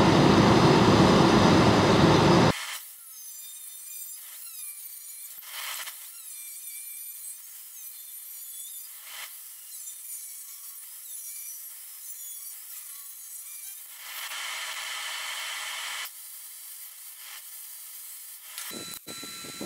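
Portable forced-air space heater running with a loud, steady rushing noise, cut off suddenly about two and a half seconds in. Then a quieter angle grinder cutting thin sheet steel, its whine wavering up and down as the disc bites, with a louder stretch of grinding near the end.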